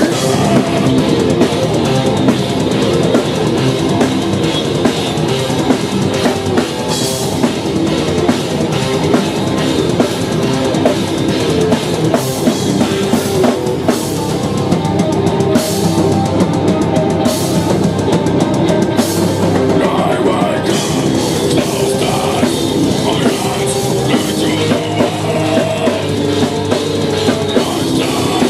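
Live metal band playing at full volume: fast drumming with bass drum and cymbals under distorted guitars and bass.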